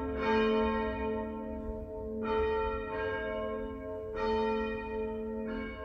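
Church bells ringing: a fresh strike about every two seconds, each ringing on in a long, steady hum.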